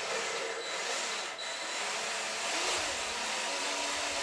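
A cordless drill runs and spins a valve through a short length of hose, lapping it against its seat in a Classic Mini A-series cylinder head. There is a steady motor whine, with the gritty rub of valve-grinding paste between valve and seat, and the pitch wavers a little.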